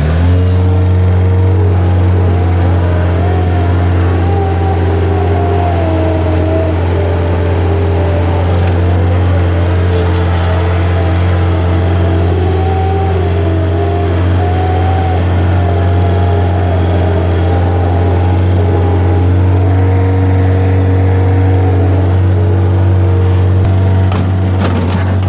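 Mustang 940 skid steer loader's engine running at a steady high speed, having just come up in speed at the start, with a wavering whine above it. A few clicks near the end.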